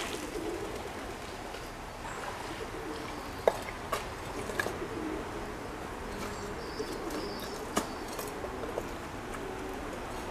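Pigeons cooing in a low, repeated warble, with two sharp clicks about four seconds apart.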